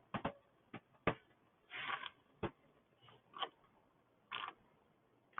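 Scattered light clicks and taps with a couple of brief scrapes as parts of a Honda GCV160 engine's air cleaner assembly are handled and pulled off by hand.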